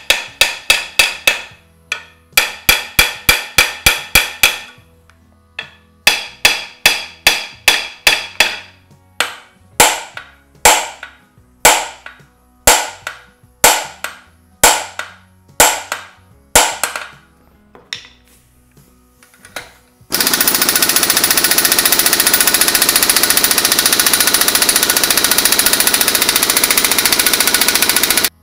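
Hammer blows ringing on a steel flywheel puller on a Classic Mini Cooper S engine's crank nose, shocking the flywheel loose from its taper: quick runs of strikes, then single blows about one a second. About twenty seconds in, an air impact wrench hammers steadily on the puller's centre bolt for about eight seconds.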